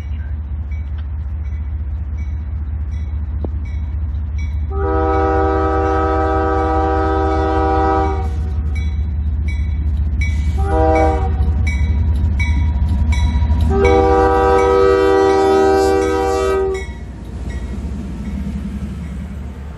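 CSX diesel locomotive horn sounding a long blast, a short blast and another long blast over the heavy rumble of the passing train. A bell dings steadily about twice a second beneath it.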